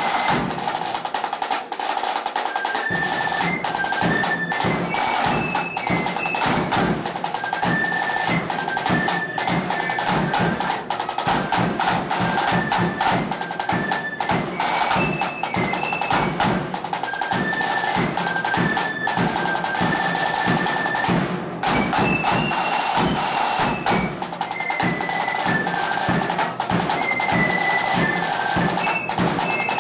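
Blood-and-thunder flute band playing a march: a line of flutes carries a high, stepping tune over rapid, loud snare drumming and a bass drum.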